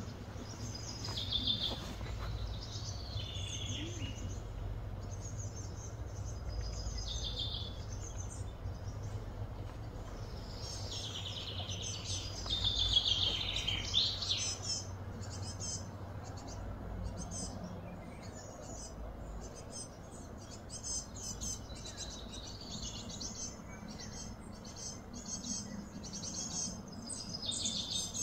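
Birds chirping on and off over a steady low hum, busiest around the middle.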